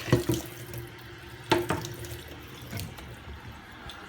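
A few sharp knocks, several with a brief ringing tone, the loudest about a second and a half in, over a faint steady hiss.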